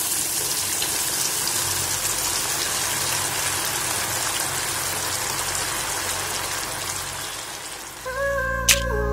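Marinated chicken 65 pieces deep-frying in hot oil, with a steady sizzle. About eight seconds in, the sizzle fades and background music starts with a click.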